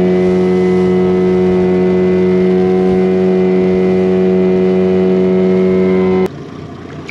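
Boat's outboard motor running at a steady, unchanging speed, then cutting off abruptly about six seconds in.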